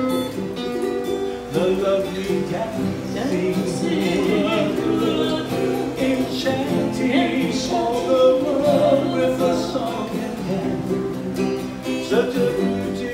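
Hawaiian slack key acoustic guitar and ukulele playing together, with a man and a woman singing a duet over them.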